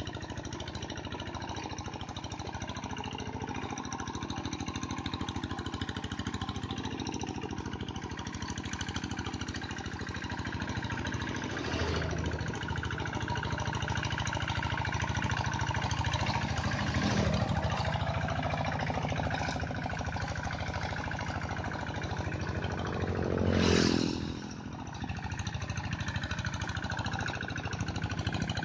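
Kubota two-wheel hand tractor's single-cylinder diesel engine running under load, churning through flooded paddy mud. It chugs steadily, and its note swells and drops a few times, most strongly about three quarters of the way through.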